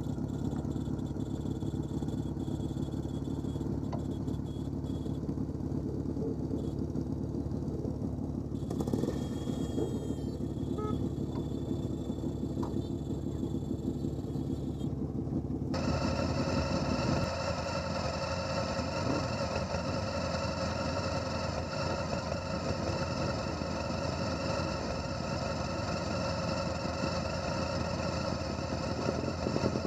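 Several motorcycles, classic bikes among them, running steadily and pulling away one after another. About halfway through, a different, fuller engine sound suddenly takes over.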